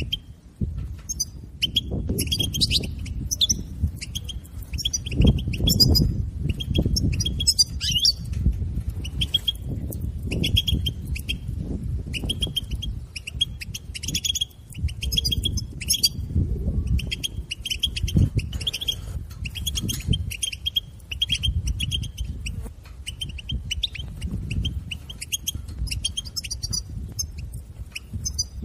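European goldfinch twittering: rapid, dense series of high chirps running without pause, over a loud, uneven low rumble.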